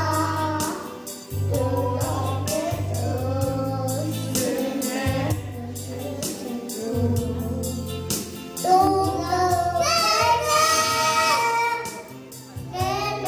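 Two young girls singing together into handheld microphones, over instrumental accompaniment with a steady bass line.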